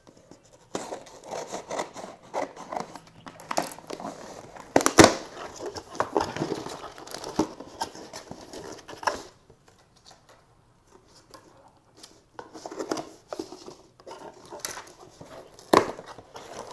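A small cardboard shipping box being cut and torn open with scissors: snipping, cardboard scraping and tearing, and packaging crinkling, in two bouts with a lull of a few seconds between. A sharp click about five seconds in is the loudest sound.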